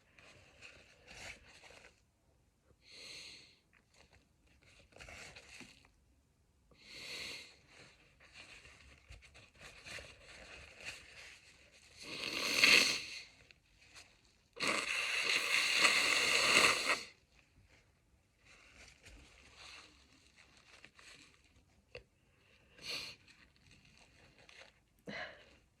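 A person sniffing and drawing breath in short bursts, building up to a loud sneeze about twelve seconds in. A few seconds later comes a louder steady blow of about two seconds, then a few quieter sniffs.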